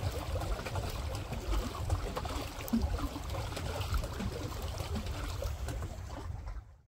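Water sloshing and splashing against a pedal paddleboat moving across choppy water, with wind rumbling on the microphone. The sound cuts off suddenly just before the end.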